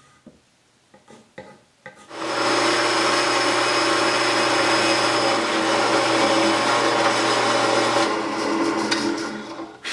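Drill press boring into a wooden beam with a Forstner bit. The motor hum and the cutting noise start about two seconds in, run steadily, and die away just before the end.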